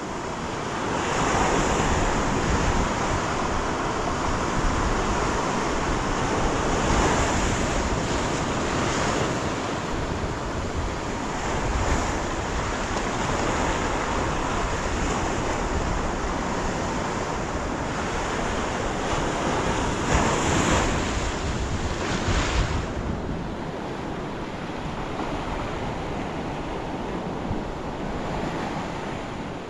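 Ocean surf breaking and washing up a sandy beach in surges every few seconds, with wind buffeting the microphone. It eases off a little in the last few seconds.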